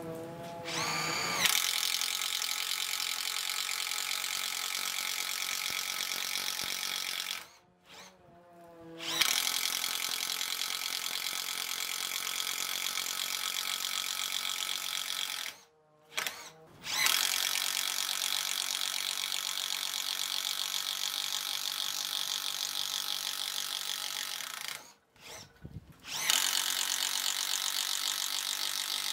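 Bosch GDR 12V-105 12 V cordless impact driver boring a 16 mm auger bit through a softwood plank, its impact mechanism hammering under load. The motor whines up in the first second before the hammering starts, then runs in four long bursts with short pauses between them.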